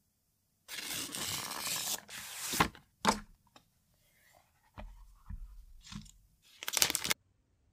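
Handling of a phone's paper-and-cardboard box and inserts: a second or so of rustling and scraping, then a few sharp taps and knocks, and a short final burst of scraping near the end.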